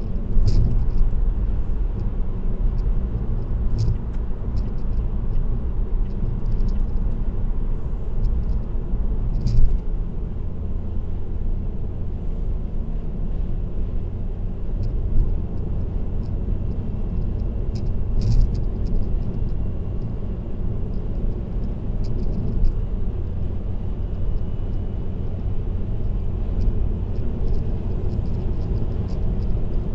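Steady road noise of a car cruising on an expressway, a low rumble of tyres and engine as heard through a dashcam in the cabin, with a few short clicks and brief knocks, the loudest around a third of the way in and just past halfway.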